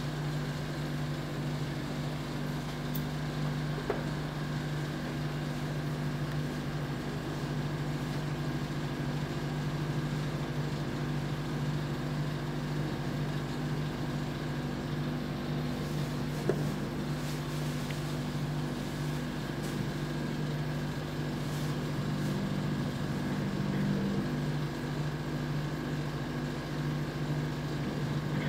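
Steady low machine hum with a constant droning tone, typical of the refrigeration compressor of a rolled-ice-cream cold plate running. A couple of faint clicks, about 4 seconds in and again about halfway through.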